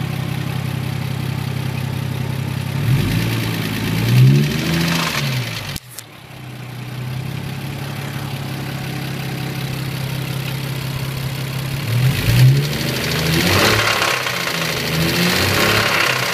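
Car engine idling, with a few short revs that rise and fall: the engine is being run to show a knock. The sound drops out suddenly for a moment about six seconds in.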